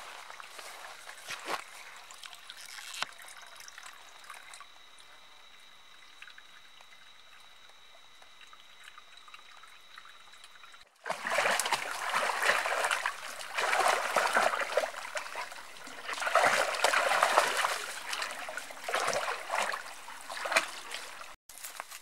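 Water trickling from a pipe spout into a wooden trough. About halfway through, a much louder, uneven splashing takes over: a German Shepherd lapping water from the trough.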